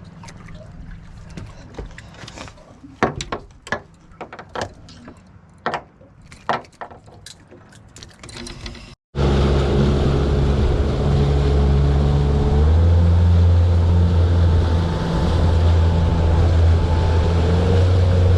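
Scattered clicks and knocks of gear being handled on a small boat. Then, after a sudden cut, a loud, steady boat outboard motor running under way, its pitch stepping up a few seconds later as it speeds up.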